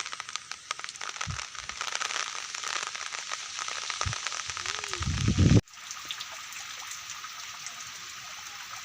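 Rain falling, a dense hiss of fine drop ticks, with a few low thumps; a little past halfway it cuts off abruptly and goes on as a steadier, quieter hiss.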